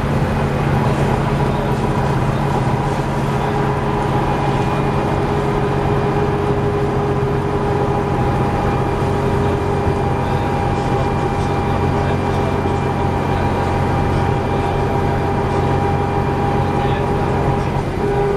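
MCW Metrobus's Gardner diesel engine running steadily, a low engine drone with a few steady whining tones above it.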